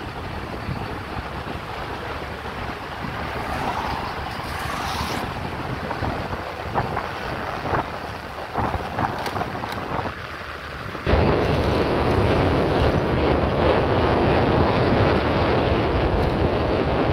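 Wind rushing over the microphone on a moving scooter, with road and motor noise underneath. A few light knocks come in the middle, and the rush jumps suddenly louder about eleven seconds in.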